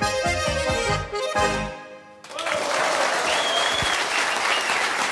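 Schwyzerörgeli (Swiss diatonic button accordions) with guitar play the closing bars of a Swiss folk tune, ending on a final chord about two seconds in. A moment later the studio audience breaks into applause, and someone whistles.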